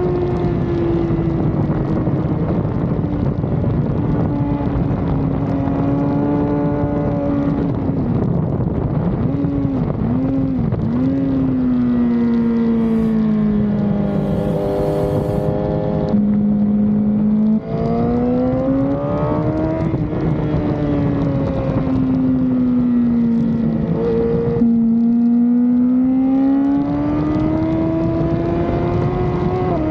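Sportbike engine heard onboard at speed, its pitch sinking and climbing over several seconds as the rider rolls off and back onto the throttle, with a few quick dips and sudden jumps in pitch from gear changes, over steady wind rush.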